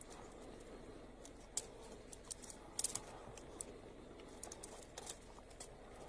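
Faint, irregular sharp clicks and crackles from a leopard biting and chewing at a porcupine among its quills, over a low steady hiss.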